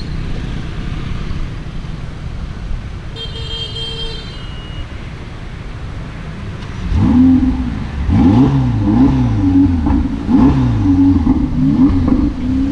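Supercar engine being revved repeatedly: after a low rumble, about halfway through the engine note starts rising and falling in quick blips, roughly once a second. A brief high-pitched tone sounds about three seconds in.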